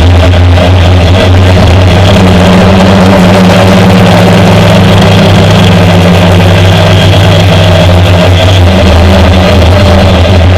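A homemade quadcopter's motors and propellers droning loudly and steadily, picked up close by the action camera mounted on the drone. The hum shifts a little in pitch now and then as the throttle changes.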